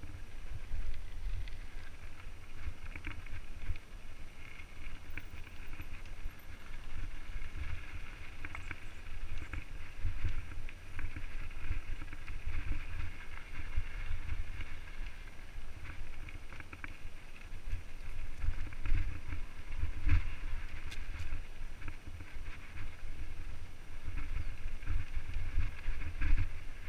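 Mountain bike descending a rough dirt singletrack, heard through a helmet-mounted camera: continuous wind buffeting on the microphone, with frequent knocks and rattles as the bike jolts over the ground.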